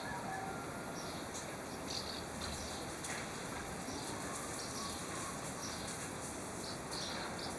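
Steady outdoor background hiss with scattered short, high-pitched chirps coming at irregular intervals.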